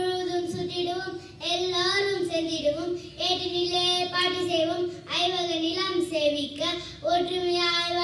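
A young girl singing solo into a microphone, holding long steady notes in short phrases with brief breaks between them.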